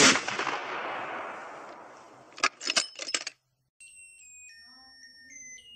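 A loud crash that fades over about two seconds, then a few sharp clinks. From about four seconds in, a small tweeter speaker in a paper cup, driven by the three-bottle water battery, plays a thin electronic tune of high beeps that step in pitch every third to half second.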